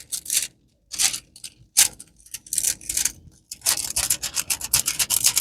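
Rustling and crinkling of diamond painting kit packaging being handled: scattered short rustles at first, then nearly continuous rustling from a little past halfway.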